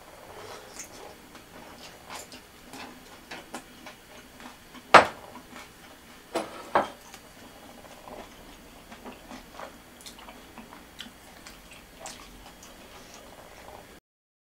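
Small ceramic pot lid and wooden chopsticks clinking and tapping as they are handled and set down on a countertop. There is one sharp knock about five seconds in and two more close together a second and a half later, amid lighter scattered taps.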